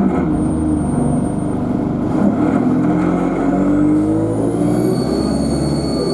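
Alexander Dennis Enviro200 bus engine pulling under acceleration, its note climbing steadily. About halfway through, a high turbocharger whine rises sharply and then holds steady.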